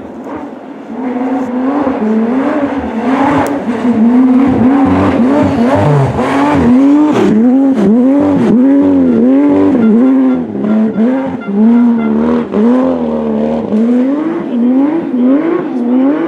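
Rally car engine revving hard, its pitch rising and falling over and over in quick swoops as the driver works the throttle and gears through the stage. It gets loud about a second in.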